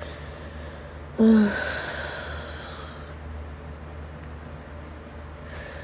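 A woman's long, breathy sigh about a second in: a brief voiced groan that trails off into an exhale fading over about two seconds. A short breath follows near the end.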